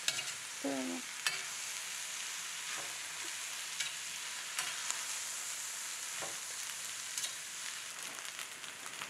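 Fried rice sizzling in a stainless steel skillet while a slotted metal spatula stirs and turns it, with scattered clicks of the spatula against the pan.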